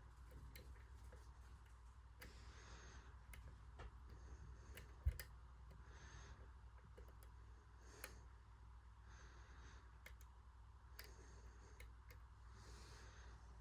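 Faint scattered clicks of a dimple pick and tension tool working the pins of a six-pin CISA dimple padlock, with one sharper click about five seconds in.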